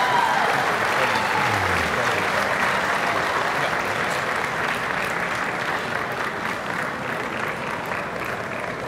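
Large indoor crowd applauding steadily, easing off slightly toward the end, with a voice briefly calling out over the clapping near the start.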